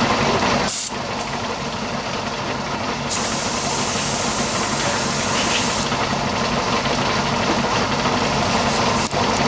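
Air compressor running steadily, with a blast of compressed air hissing from about three to six seconds in, blowing dust off the work.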